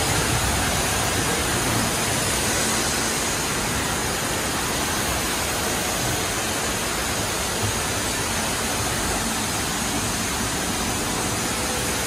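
Steady rushing hiss of a running horizontal machining centre, with cutting coolant spraying and streaming inside its closed enclosure.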